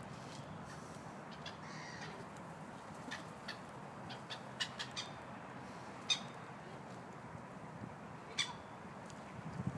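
Quiet outdoor background with a few short, faint bird calls scattered through it, the clearest one about six seconds in.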